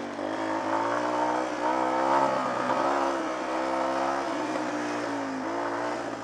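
Small off-road motorcycle's engine running while riding, its pitch rising and falling a little with the throttle, over a steady rush of noise.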